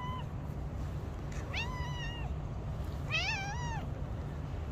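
Calico cat meowing: the tail of one meow at the start, then two drawn-out meows about a second and a half apart, the second wavering up and down in pitch. A steady low rumble runs underneath.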